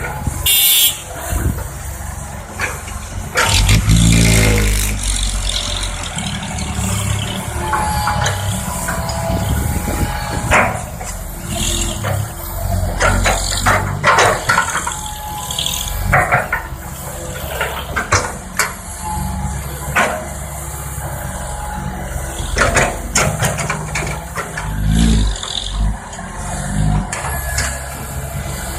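Tracked excavator's diesel engine running under hydraulic load, revving up with a rising pitch about four seconds in. Repeated clanks and knocks sound over the engine, and there is a brief hiss about a second in.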